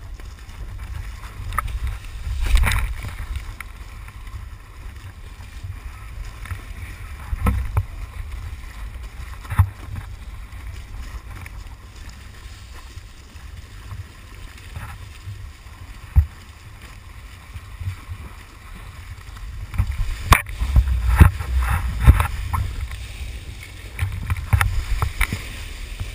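Wind buffeting the microphone and water rushing under a kiteboard planing over choppy sea. Sharp slaps and splashes of spray come every few seconds, thickest a little past two-thirds of the way through.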